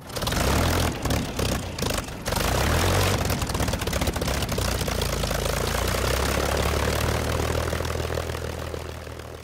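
Propeller aircraft engine droning steadily, with a low hum under a rushing noise and a few crackles in the first couple of seconds; it begins to fade away near the end.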